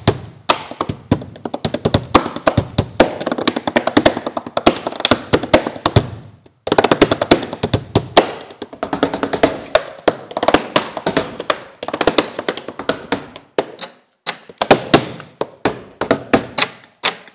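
Hand drumming on a camper's door and body panels: fast rhythmic slaps, taps and thunks with a deep bass ring from the large body. The playing breaks off briefly about six seconds in and again near fourteen seconds.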